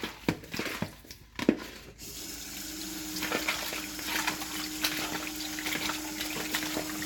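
A few knocks of things being handled, then about two seconds in a kitchen tap is turned on and water runs steadily into the sink while pieces of chicken are washed under it, with occasional knocks and a low steady hum.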